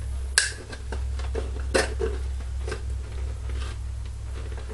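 Scattered short metallic clicks and knocks from a steel helmet shell as the liner's screw, frame and springs are worked around inside it while hunting for the screw hole; the sharpest click comes about half a second in. A steady low hum runs underneath.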